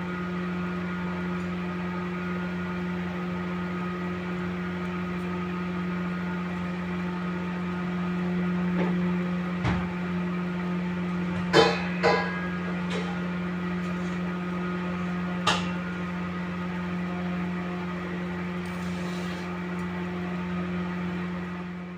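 Steady electrical hum of a kitchen appliance's motor, with a few sharp clinks around the middle.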